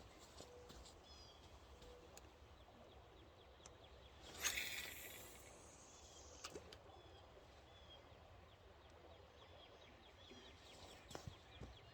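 Near silence of quiet outdoor ambience with a few faint bird chirps. About four and a half seconds in there is one brief noisy burst that fades over about a second, and a couple of small clicks later on.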